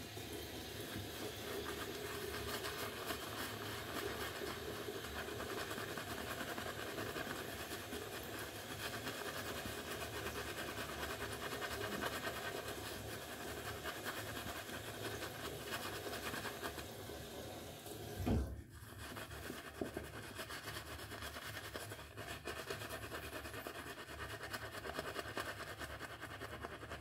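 Synthetic shaving brush working shaving soap and water into lather: a continuous wet, scratchy swishing. A brief low thump comes about eighteen seconds in, followed by a moment's pause.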